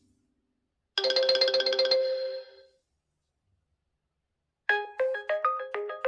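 realme GT2 Pro ringtones playing one after another. About a second in, a short bright chime chord sounds and fades away. After a silent gap of about two seconds, a new ringtone starts with a fast run of short pitched notes.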